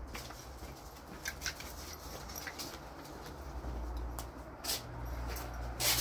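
A few scattered footsteps scuffing on a paved yard, the two loudest near the end, over a steady low background hum.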